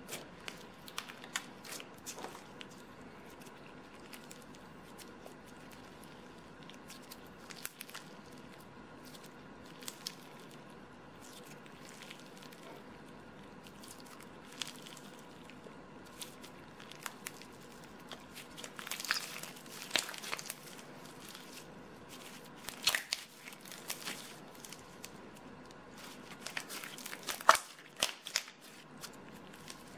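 Clear glitter slime packed with glitter-coated clay balls and gold leaf being squeezed, pressed and stretched by hand, giving soft sticky crackles and pops. A few louder bursts of crackling come in the second half, the loudest near the end.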